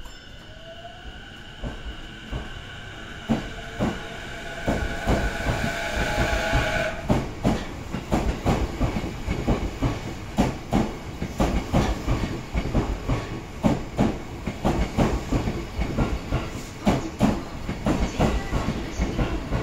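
JR East E233-series electric train pulling away: its inverter and traction motors give a steady whine for the first seven seconds or so. The whine then fades and gives way to a rhythmic clatter of wheels over rail joints that keeps on as the train gathers speed.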